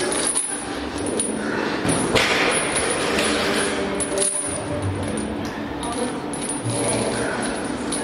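Steel chains hanging from a barbell clinking and rattling against the gym floor as the bar is lowered and pressed back up, with a louder rattle about two seconds in.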